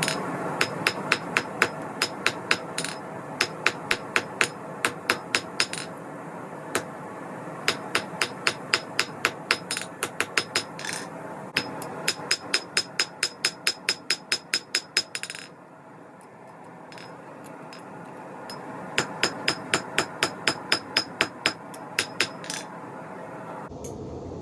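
Hand forging hammer striking hot steel on an anvil in quick runs of about three to four ringing blows a second, drawing out the tang and blade of a small knife. The hammering pauses briefly about six seconds in and for about three seconds past the middle, over a steady rushing noise underneath.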